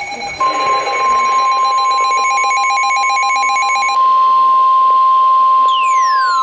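NOAA Weather Radio warning alarm tone: a single steady high tone near 1 kHz that starts about half a second in, the signal that a warning is about to be broadcast. Other pulsing electronic tones overlap it for the first few seconds, and a falling electronic sweep comes near the end.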